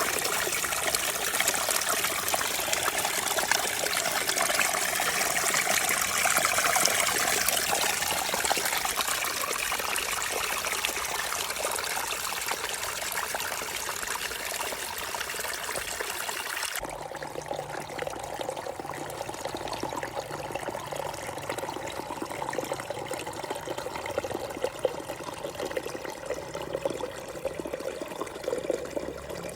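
Small waterfall of clear stream water splashing and trickling steadily. About 17 seconds in, the sound changes abruptly and becomes duller, with less hiss.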